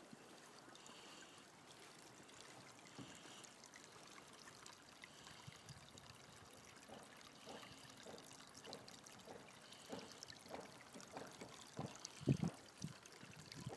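Faint trickle of meltwater running between snow-capped rocks at the water's edge, with crunching steps on the gravel growing louder near the end.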